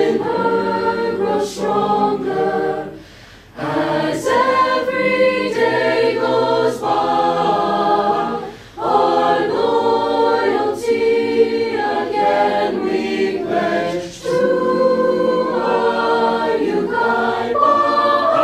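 A mixed choir of boys and girls singing a cappella in sustained phrases, breaking off briefly between phrases about three, nine and fourteen seconds in.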